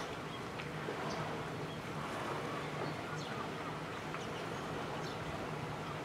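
Harbour-side ambience: a steady low engine hum under an even wash of noise, with faint short bird calls now and then.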